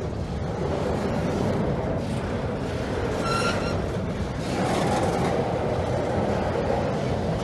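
Double-stack intermodal freight train rolling past close by: a steady rumble and clatter of the well cars' steel wheels on the rails, with a brief high metallic squeal about three seconds in.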